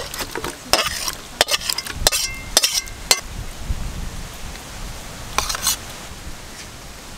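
Metal spatula scraping and clinking against a steel cooking pan and a steel bowl as chicken curry is scooped out: a run of sharp clinks, some with a brief metallic ring, in the first three seconds and one more scrape about five and a half seconds in.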